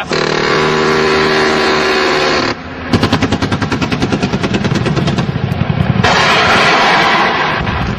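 Machine gun on a military helicopter firing one long burst of about ten rounds a second, starting about three seconds in and lasting about three seconds, over the steady noise of the helicopter.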